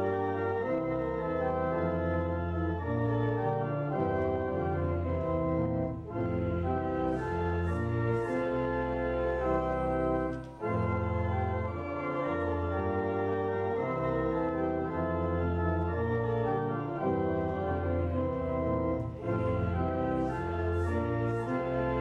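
Organ playing a hymn tune in sustained, full chords that change step by step, with short breaks between phrases about six and ten seconds in.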